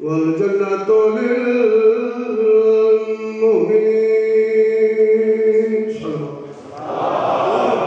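A man chanting the Arabic opening of a majlis recitation in long, drawn-out melodic notes, some held for two seconds or more, with short pitch turns between them. The chant stops about six seconds in and a broad noisy wash of sound follows.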